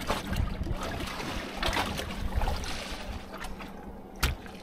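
Water trickling and lapping around a small fibreglass boat, under a faint steady hum, with one sharp knock on the boat's fibreglass about four seconds in.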